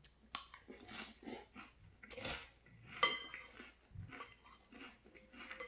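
Crunchy chewing of frosted corn flakes in milk, in a run of short crackly bursts, with a metal spoon striking the ceramic bowl about three seconds in, a sharp clink that rings briefly.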